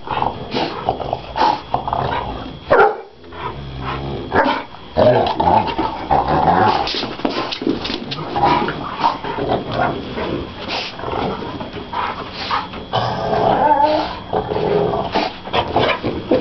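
Several dogs, among them a Dogue de Bordeaux, play-fighting on carpet: irregular dog growls and grunts mixed with scuffling and sharp knocks, with a short lull about three seconds in.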